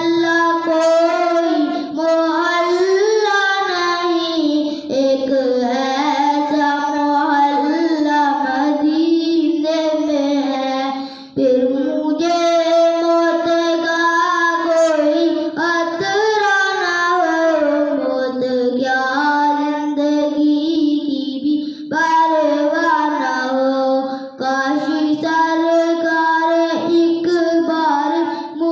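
A boy singing an Urdu naat solo and unaccompanied, in long melodic phrases of held, ornamented notes that bend up and down, with short pauses for breath between phrases.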